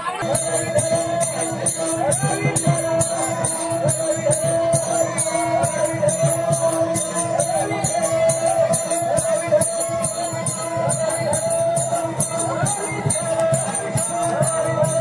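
Devotional bhajan music: a fast, even metallic jingling beat over steady droning held notes.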